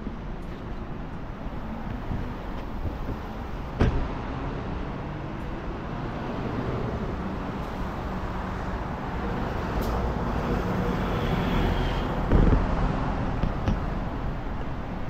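City road traffic: cars and other vehicles running past on a busy street, with the sound swelling as a vehicle comes close and passes. Two sharp knocks stand out, about four seconds in and near the end.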